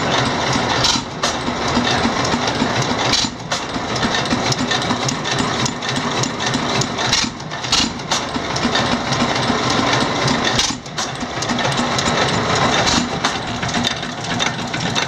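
1912 Fairbanks-Morse 15 hp hit-and-miss engine running under load, driving a partly working two-stamp ore mill through belts and line shafting. It makes a steady, dense mechanical clatter with a few brief dips.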